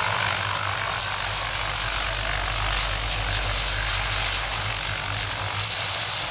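Transall C-160R's two Rolls-Royce Tyne turboprop engines running as the aircraft rolls along the runway after touchdown: a steady high turbine whine over a low propeller drone.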